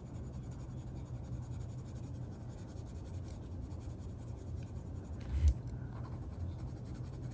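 Green Mondo Llama colored pencil scratching softly on coloring-book paper as it shades a leaf, over a steady low hum. A single soft thump about five seconds in.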